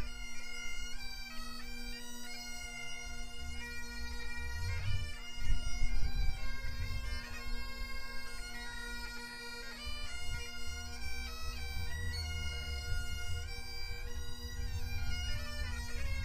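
Bagpipes playing a tune: a steady drone held beneath a chanter melody that moves from note to note.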